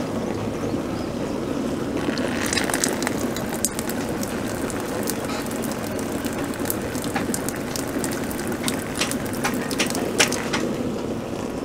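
Hose water running and splashing through a PVC rainwater collection system into plastic barrels during a trial run: a steady rush of water with many scattered drips and ticks.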